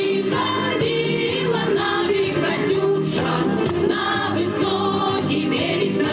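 Music: a choir singing with instrumental accompaniment and a steady beat.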